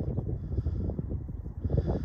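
Wind buffeting the microphone: an irregular low rumble with short knocks.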